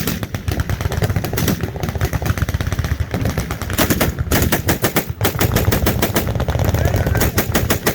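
Machine-gun fire: rapid automatic shots in long, nearly continuous bursts with a few short breaks.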